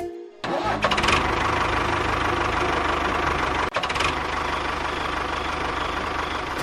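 A small engine running steadily. It cuts in about half a second in and drops out for a moment near the middle.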